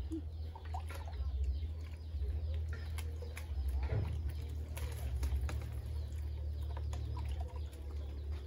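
Water splashing as it is poured from a plastic dipper over a bather's head, about four seconds in, over a steady low rumble, with birds calling in the background.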